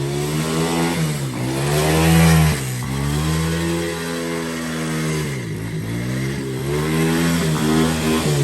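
125cc Coolster ATV's single-cylinder four-stroke engine revving up and down under throttle about five times while the quad is driven, apparently in reverse gear when first was meant.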